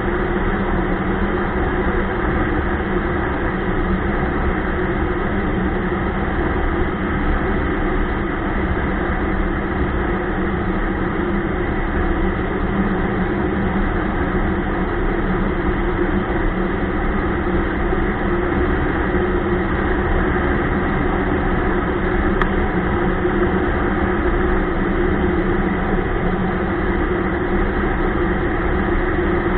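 Ski-Doo Expedition LE snowmobile running at a steady speed, a constant engine drone that holds one pitch throughout.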